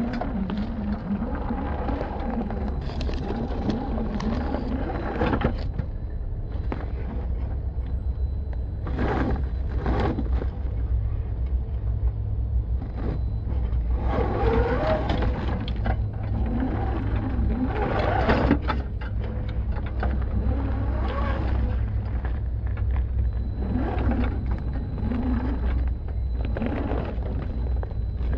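Boomracing D90 scale RC crawler's electric motor and geared drivetrain whining in stop-start bursts of throttle as it climbs, with the tyres scraping and crunching through loose dirt, over a steady low rumble.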